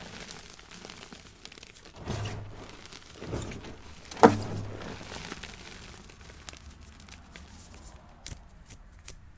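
Blocks of gym chalk being crushed and handled by hand: three dull crunches, the sharpest and loudest about four seconds in, then small scattered crackles.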